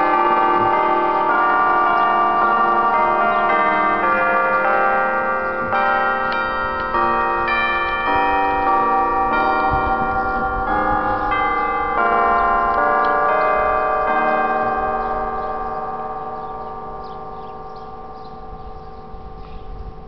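Church bells ringing the noon chime: a tune of struck notes at changing pitches, each note ringing on under the next. The ringing dies away over the last few seconds.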